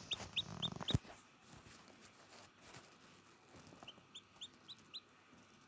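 Chicken giving runs of short, high-pitched rising peeps, about four a second: one run at the start and another about four seconds in. A sharp knock about a second in is the loudest sound, with some rustling around it.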